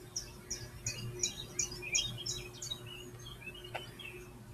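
Recorded bird song played through computer speakers: a run of about eight quick, falling chirps, roughly three a second, that stops about two-thirds of the way in. A single sharp knock follows near the end.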